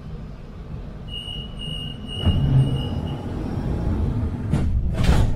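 Automatic metro train at a station: the door-closing warning beeps, a series of high beeps lasting about two seconds, then a knock as the doors shut and the low rumble of the train moving off. Two sharp knocks near the end.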